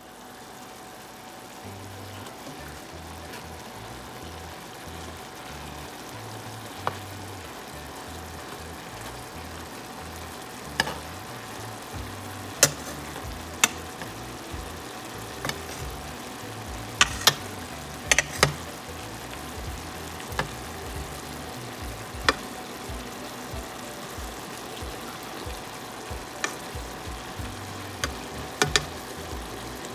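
Chicken adobo sizzling in its cooked-down soy and vinegar sauce in a pan, a steady frying hiss, with sharp clicks of a metal spoon striking the pan as the chicken is stirred.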